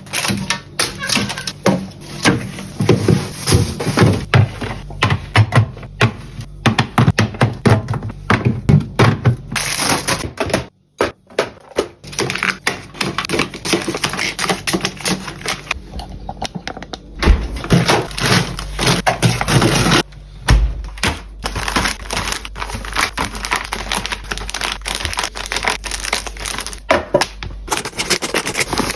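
Groceries and their packaging being handled close to the microphone: a dense run of quick taps and clicks, crinkling plastic wrappers, and items set down with light thunks.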